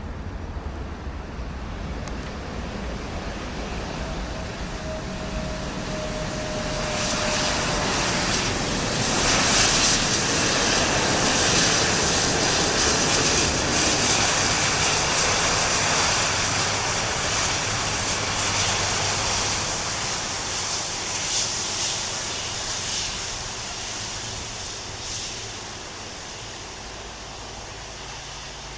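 Airbus A330-200 jet airliner's engines passing by on its landing approach: a rush of jet noise that swells about seven seconds in, is loudest for several seconds, then slowly fades away.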